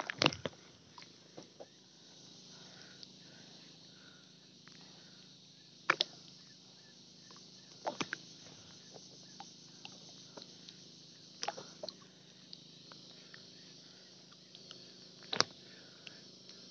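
Faint, steady open-water hiss broken by a handful of short, sharp knocks, the loudest about six, eight and fifteen seconds in.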